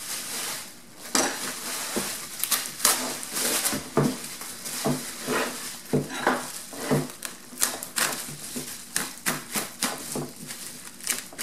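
Bubble wrap and plastic bags crinkling and rustling as a wrapped part is handled and unwrapped, with many irregular sharp crackles.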